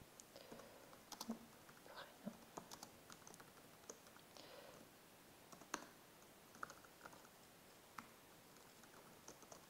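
Faint, irregular keystrokes on a computer keyboard as text is typed into form fields, with a few sharper clicks among them.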